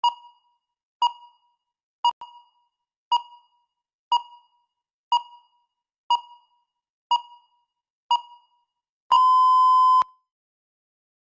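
Countdown timer beeping once a second, nine short beeps in all, then one longer steady beep of about a second as it reaches zero, signalling that the time is up.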